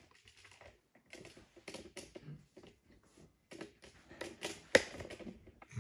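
Light, irregular clicks and taps of makeup containers and tools being handled, the sharpest a little before the end.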